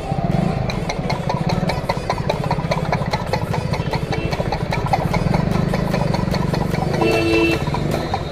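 An engine idling steadily with a fast, even throb. A brief horn-like tone sounds about seven seconds in.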